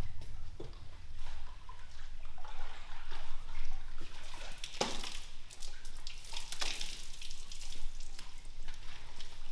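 A wet rug being hauled out of a perforated rug-washing drum: water dripping and splattering in an irregular patter, with louder splashes and slaps about halfway and around two-thirds of the way through as the soaked rug drops over the machine's rail.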